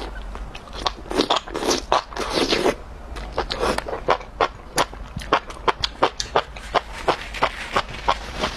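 Close-miked eating: a long slurp of a mouthful of noodle-like strands drawn off a skewer, then open-mouthed chewing with wet smacking clicks, roughly three a second.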